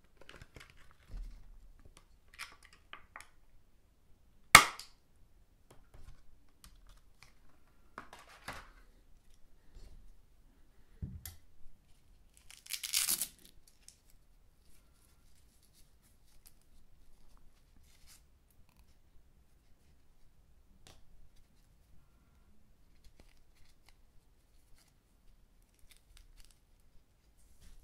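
Hands handling a clear plastic blister pack and a small fabric sensor case with Velcro closures: scattered small clicks and rustles, with one sharp plastic snap about four and a half seconds in. A short tearing rasp comes near the middle, as a Velcro flap is pulled open.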